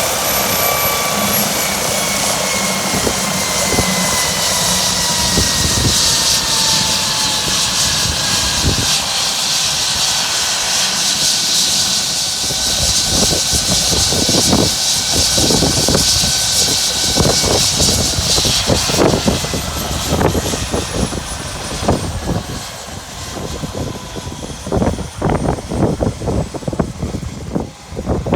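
Helicopter turbine whine and rotor noise, the whine slowly falling in pitch and the rotor noise fading after about 19 seconds. Strong wind buffets the microphone throughout in heavy gusts, which stand out more near the end.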